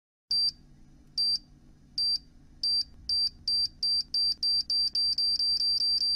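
Electronic beeper giving short high-pitched beeps that speed up steadily from less than one a second to several a second until they nearly run together, like a bomb countdown timer, over a faint low hum.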